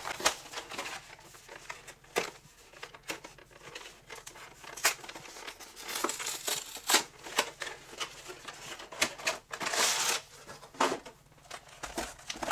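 Plastic shrink wrap being torn off and crinkled while a cardboard trading-card collection box is opened by hand: a run of short, sharp crackles and clicks, with a longer stretch of crinkling about ten seconds in.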